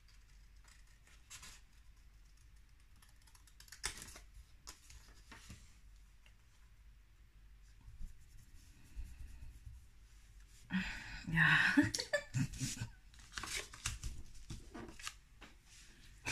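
Cardstock and patterned paper being handled and shifted on a cutting mat: faint rustles and a crisp click about four seconds in, then a busier run of paper rustling and scraping in the last few seconds.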